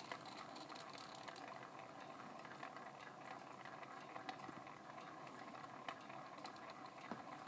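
Faint steady whir with scattered light ticks from a small motorized turntable slowly rotating the figures on its mirrored top.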